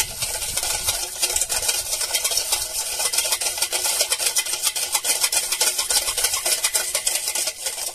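Wire whisk beating watermelon juice in a steel bowl: rapid clicking of the wires against the metal with the liquid splashing.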